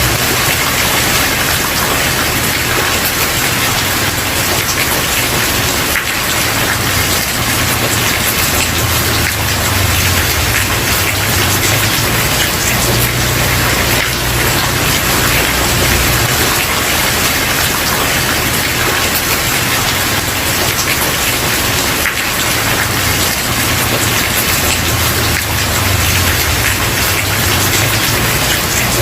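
Steady rain falling on a wooden porch: an even, dense hiss of drops, with a low rumble underneath that swells and fades.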